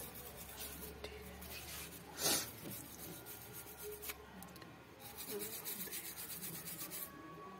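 Toothbrush bristles scrubbing the gold button contacts of a Nokia phone's keypad circuit board with petrol, cleaning the contacts of buttons that don't work. Uneven scratchy strokes, one sharper and louder about two seconds in.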